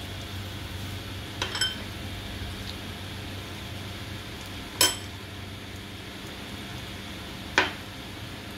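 A metal spoon clinking against a steel plate while spreading cream on a slice of bread: a quick double clink, then a louder ringing clink about five seconds in and a last clink near the end, over a steady low hum.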